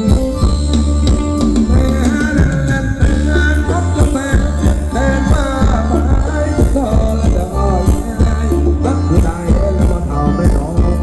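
Thai luk thung band music played live: a steady bass and drum beat with a singer's voice over it from about two seconds in.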